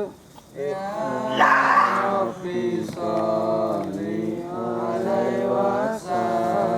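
Men's voices chanting the Islamic sholawat in slow, long-held, wavering notes. About a second and a half in, a brief loud, rough sound rises over the chant.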